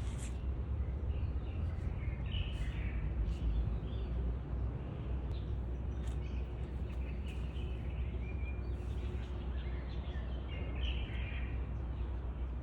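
Outdoor background noise: a steady low rumble with scattered short, high bird chirps.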